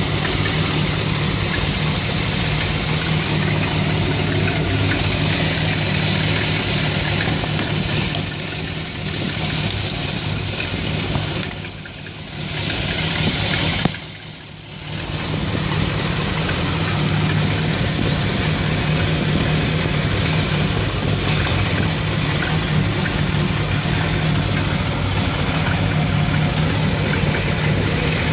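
1975 Dodge B200 van's Mopar 360 (5.9 L) V8 small-block with a two-barrel carburettor idling warm. The idle is rough, which the owner says a new ignition coil has not cured. The sound dips briefly twice, about twelve and fifteen seconds in.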